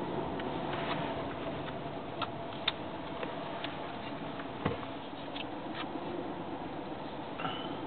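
Car running slowly, heard from inside the cabin: a steady engine and road hum with scattered light clicks and rattles, and a brief high squeak near the end.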